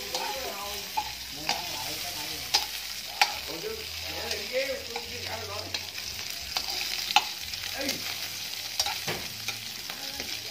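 Food frying in oil in a wok with a steady sizzle, stirred with a metal spatula that clicks and scrapes irregularly against the pan.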